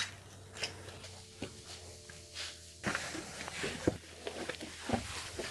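Footsteps and scuffs of a person climbing up in a cramped room, with irregular knocks and rustling of clothes and gear, busier in the second half.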